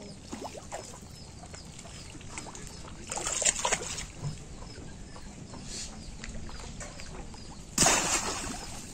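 A bamboo cage fish trap is pushed down into shallow pond water with a loud splash near the end, which fades over about a second. A shorter burst of water splashing comes about three seconds in.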